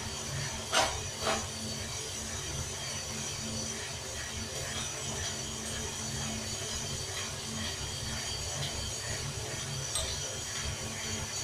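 Coffee beans tumbling and rattling in the rotating steel drum of a homemade roaster as they roast, a steady mechanical rattle over a low hum. Two sharp metal clicks about a second in, and a lighter one near the end, as the bean sampling trier is handled.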